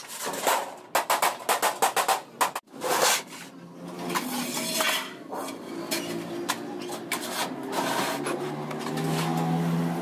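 Rapid hammer blows on sheet steel, several strikes a second, for the first two and a half seconds. After an abrupt break, a steadier sound with held tones follows.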